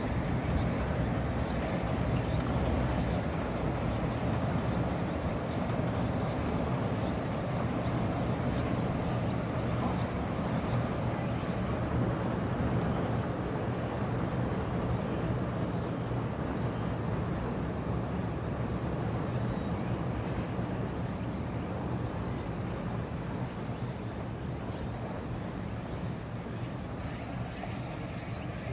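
Steady vehicle rumble with a low hum, easing slightly toward the end.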